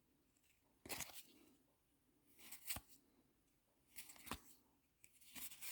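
Baseball cards being slid off a stack one at a time: four soft, brief swishes about every second and a half.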